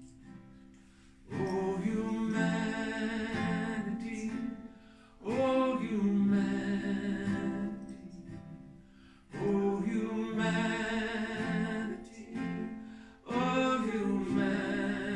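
A man singing four long, wavering phrases with vibrato, separated by short breaths, over his own acoustic guitar, played unamplified in a small room.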